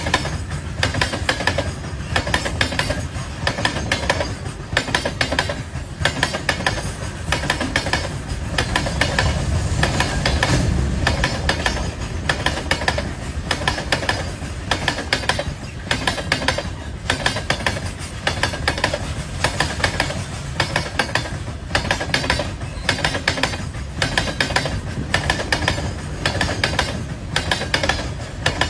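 Train wheels clacking over rail joints in a steady repeating rhythm, over the continuous low rumble of the moving train.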